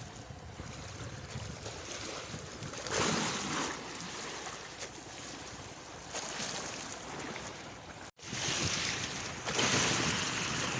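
Sea waves washing in, with wind rushing on the microphone, swelling and easing in surges. The sound cuts out for an instant a little after eight seconds, then comes back louder.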